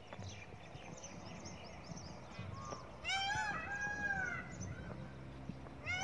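Faint chirps of small birds, then about halfway through a loud, drawn-out bird call that rises and falls in pitch, honk-like, over the chirping.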